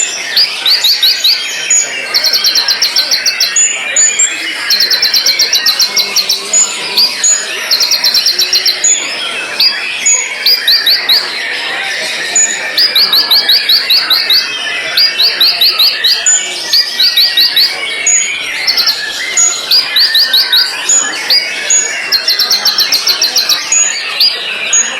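White-rumped shama (murai batu) singing. It repeats bursts of rapid, sharp, high notes about a second long, one every second or two, over a dense background of other bird chirping.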